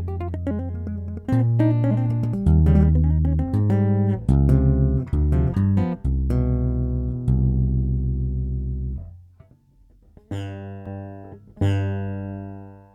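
Electric bass guitar played with a tapping technique: a quick run of short notes, a brief gap about nine seconds in, then two notes left to ring out and fade.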